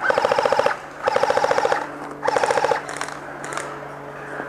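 Airsoft gun firing on full auto in three short bursts, each a fast even rattle of shots, stopping about three seconds in.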